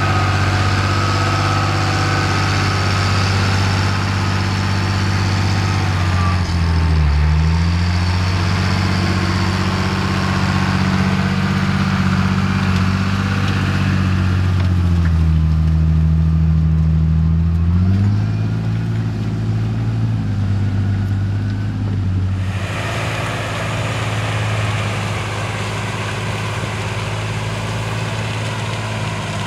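John Deere 8200T tracked tractor's 8.1-litre inline six-cylinder diesel working hard, pulling a plough through deep mud. The engine note sags briefly about seven seconds in and again for a few seconds in the middle, as the load bogs it down, then picks back up.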